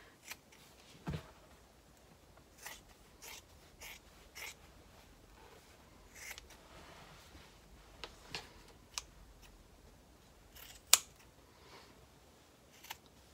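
Scissors snipping through layers of fabric, trimming a seam allowance: a faint string of short, irregular snips, the sharpest one a couple of seconds before the end.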